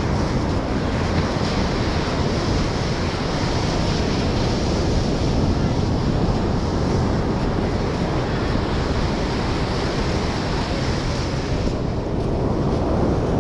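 Steady roar of ocean surf breaking on a sandy beach, mixed with wind buffeting the microphone.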